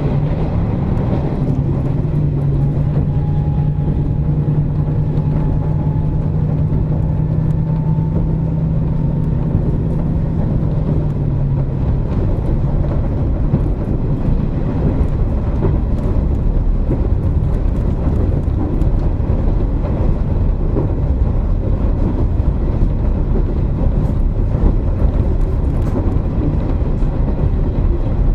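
Running sound inside a KiHa 47 diesel railcar. The diesel engine hums under power for roughly the first ten seconds, then its note fades away, leaving the steady rumble of wheels on rail with faint clicks as the car runs on.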